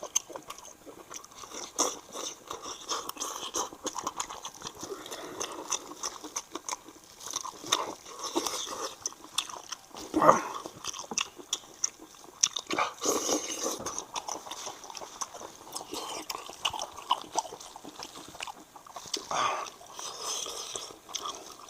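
Close-up chewing and biting of spicy braised sheep's head meat: a continuous run of wet, clicking mouth noises, with a few brief louder moments, the loudest about ten seconds in.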